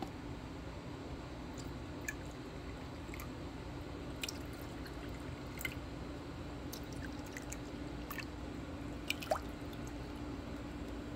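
Corn-syrup water poured from a plastic measuring jug into small glass jars: faint trickling and scattered drips, with a short rising fill sound near the end. A steady low hum runs underneath.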